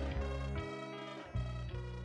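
Slowed-down electronic music: held melodic notes over a bass line whose notes come in every second or so, slowly getting quieter.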